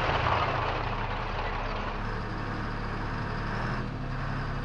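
Tank engine running steadily, a low rumble under a noisy haze, the sound changing character about two seconds in and again near the end.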